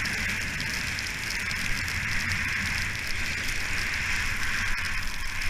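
Skis sliding over fresh snow with a steady hiss, mixed with a low wind rumble on the GoPro's microphone as the skier descends.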